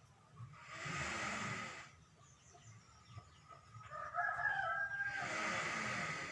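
A sleeping cow snoring: two long, loud, noisy breaths about four seconds apart. A brief pitched call sounds just before the second breath.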